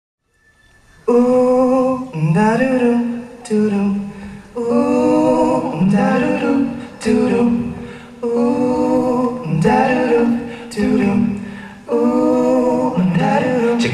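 A singer's voice, unaccompanied, holding long drawn-out notes with vibrato, in phrases of one to two seconds with short breaks between them; it starts about a second in.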